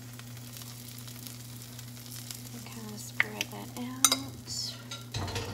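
Chaffle batter of egg and cheese sizzling on a hot mini waffle maker while a fork spreads it, with a few light clicks of the fork about three and four seconds in, over a steady low hum.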